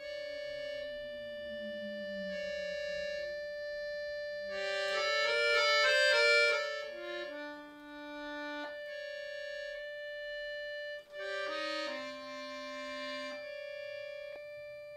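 Chromatic button accordion playing solo: a high note is held steadily under a moving melody. A fast, dense run of notes about five seconds in is the loudest part, and the sound breaks off briefly about eleven seconds in.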